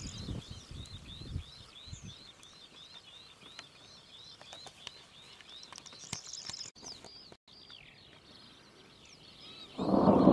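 A songbird repeating a short rising chirp about three to four times a second. About ten seconds in, a sudden loud rushing noise takes over and drowns it out.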